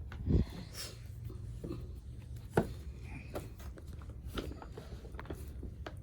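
Scattered light clicks and knocks of things being handled, with a low thump about a third of a second in and a sharper click about two and a half seconds in, over a faint low hum.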